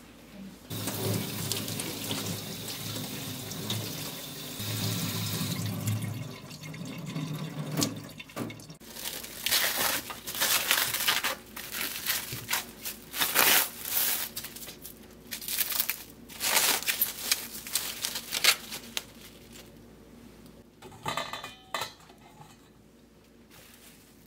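Tap water running steadily for about eight seconds, then plastic cling wrap crackling in short, irregular bursts as it is peeled off a radish.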